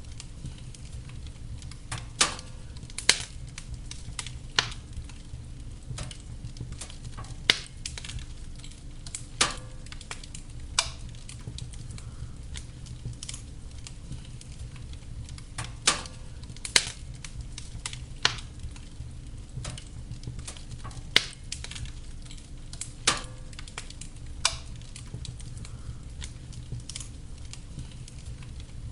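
Wood fire burning in a fireplace: a steady low rumble of flames with irregular sharp crackles and pops, about a dozen loud ones spread through.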